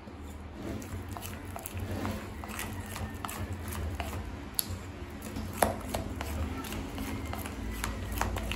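A spoon stirring thick gram-flour batter in a glass bowl, with irregular light clicks of the spoon against the glass over a soft wet churning.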